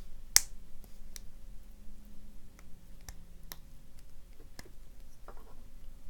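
Small metallic clicks and taps as a C-clip is pried off the back of a brass padlock core with a flat steel tool. One sharp click about half a second in is by far the loudest, followed by scattered fainter clicks.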